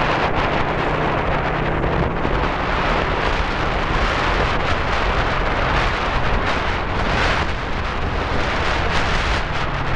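Wind rushing over the microphone from riding on a moving motorbike, with a steady low engine hum underneath.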